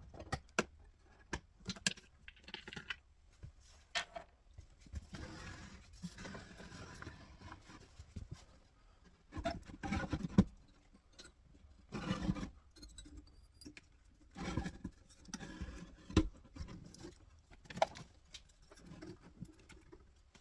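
Irregular clicks, knocks and scrapes of handling as the metal chassis of a 1937 Philco tube radio is pulled out of its wooden cabinet, with a few louder knocks in the middle stretch and faint rustling between them.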